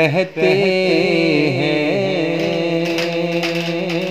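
A man's solo voice singing an Urdu naat, drawing out the word 'rehte' in a long, ornamented melodic line with a brief breath near the start.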